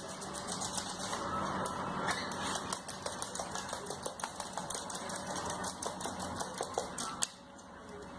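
A parrot scuffling and rolling with a plush toy on a hard floor: a run of small irregular clicks and scratches over a steady hiss.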